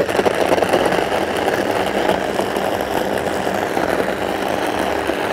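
Electric hand blender running in its chopper bowl, blending a creamy liquid salad dressing. It starts abruptly and runs steadily.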